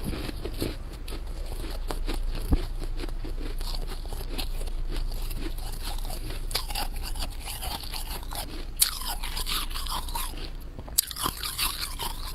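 Thick freezer frost crunching and crackling as it is crushed and scraped by hand: a dense run of small crunches, with three sharper snaps.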